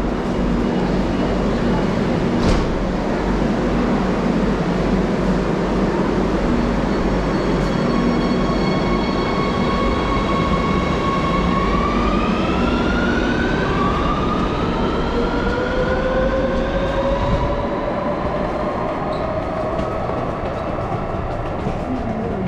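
Madrid Metro train running with a steady rumble. About a third of the way in, a whine from its electric traction motors starts and then climbs in pitch in steps as the train picks up speed.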